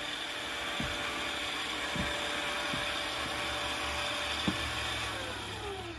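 Electric winch paying out cable as the toy hauler's heavy rear ramp door lowers, with a steady motor whine and a few small knocks. The whine falls in pitch and dies away near the end as the winch stops.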